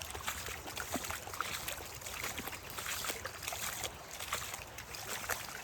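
Shallow creek water trickling and babbling over rocks, a steady rush dotted with many small irregular plinks and splashes.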